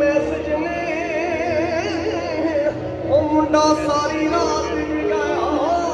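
Live Punjabi song over a stage PA system: a singer's ornamented, wavering melody with held notes over a steady bass line.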